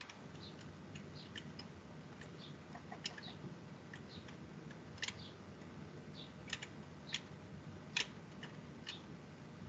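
Faint, irregular clicking from someone using a computer's keys and mouse buttons, a few clicks a second, over a low steady hum.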